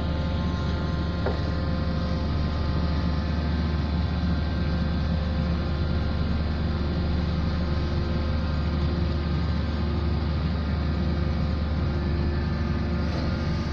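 Engine of a pile-driving machine running steadily, a low drone with no hammer blows.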